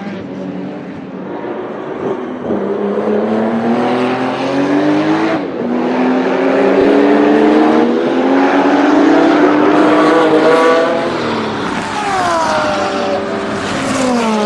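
A high-performance car engine and exhaust accelerating hard through the gears, its pitch climbing and then dropping at a shift about five seconds in. It climbs again, then falls away with downward glides and a few sharp pops near the end.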